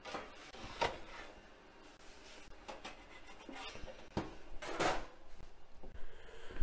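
Door and metal pan of a Breville Smart Oven Pizzaiolo being handled: a string of short metal scrapes and clunks, the loudest a little under five seconds in as the door is shut.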